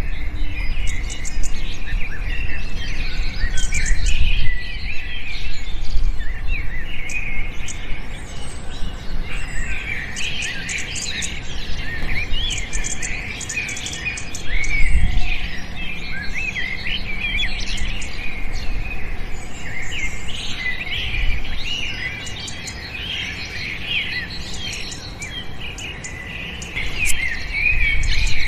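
Many small birds chirping and twittering together, a dense chorus of short, high calls and trills that never lets up.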